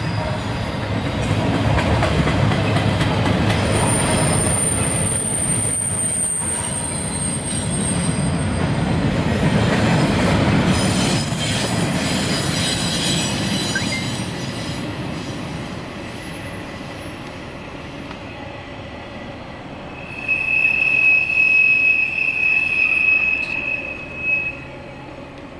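Double-stack intermodal freight train's well cars rolling past, their wheels rumbling and clattering over the rail, with a thin high wheel squeal a few seconds in. The rumble fades as the end of the train draws away. Near the end a louder, steady, lower-pitched wheel squeal sounds for about four seconds.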